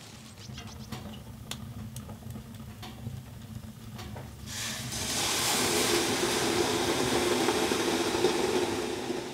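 Water ladled onto the hot stones of a sauna stove, hissing into steam (löyly). The hiss swells up about halfway through and holds for some four seconds before it fades. Before it there is a low hum with a few light clicks.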